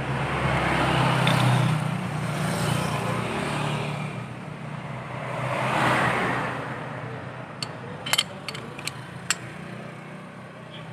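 A passing road vehicle's engine noise swells and fades twice. Near the end come a handful of sharp metallic clicks from the steel clutch carrier plate and shoes being handled.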